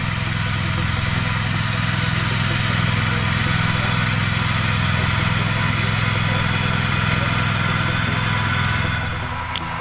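Köppl Gekko single-axle implement carrier with a portal sickle-bar mower, its engine running steadily while the cutter bar cuts grass, a constant mechanical clatter over the engine note. The sound drops somewhat about nine seconds in.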